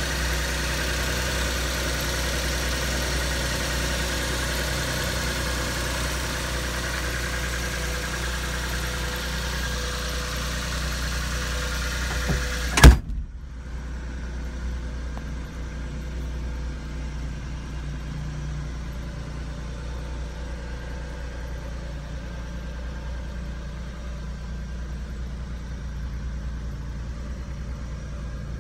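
Mitsubishi Minicab kei truck's engine idling steadily. About halfway through there is one sharp, loud slam, after which the idle goes on quieter and muffled.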